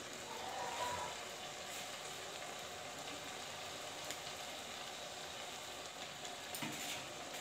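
Potatoes and spinach sizzling in oil inside a clay pot (matka) on a gas flame: a faint, steady, even hiss. A short louder sound comes about a second in.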